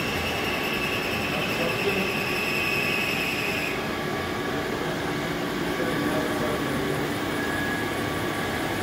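Steady hum of a powered-up DECKEL FP4 NC CNC milling machine, with a thin high whine that stops about four seconds in.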